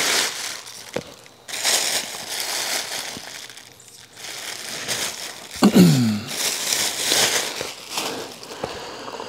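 Clear plastic packaging bag crinkling and rustling as it is pulled off an engine and crumpled by hand, in several bouts with small clicks between them.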